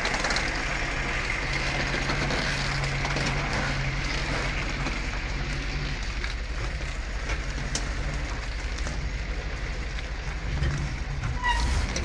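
Engine of a heavy log truck running steadily under load as the loaded truck creeps forward.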